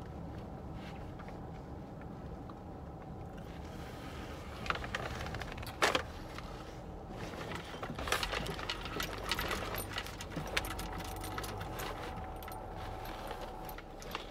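Inside a car: a steady low hum under scattered clicks and rustling of things being handled, with one sharp click about six seconds in and busier rattling from about eight seconds on.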